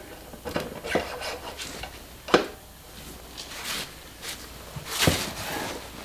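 Steel rear axle shaft being slid and worked through a motorcycle's rear wheel hub: scattered metallic clinks and scrapes, with a sharper knock about two seconds in and another near five seconds.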